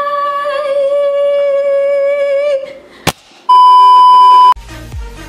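A woman holding one long sung note for about two and a half seconds, then a sharp click and a loud steady television test-pattern beep lasting about a second. An electronic music beat starts near the end.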